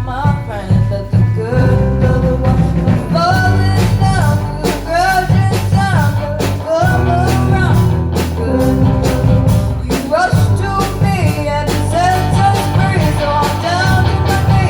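Amateur live band playing a rock song, with drum kit hits on a steady beat, bass and guitar, and a sung melody line over them.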